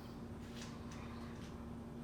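Quiet background with a steady low hum and a couple of faint, brief rustles, as of paper being handled.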